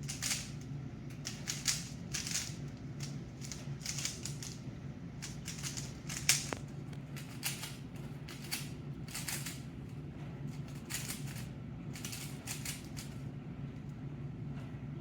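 A speed cube being turned fast, its layers clicking and rattling in quick irregular bursts, with one sharper click about six seconds in. A steady low hum runs underneath.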